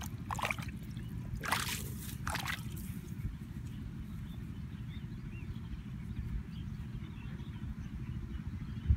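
Muddy water sloshing and splashing three times in the first three seconds as a plastic tub of caught fish is lifted out of a shallow puddle, over a steady low rumble.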